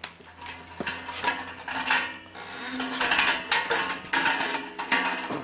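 Welded steel brew-rig frame being dragged on its new caster wheels, rattling and clanking in irregular bursts as it rolls and bumps along.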